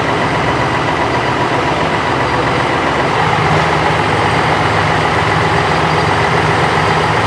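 Diesel engine of a MAN fire engine running steadily at close range, rising slightly about three seconds in.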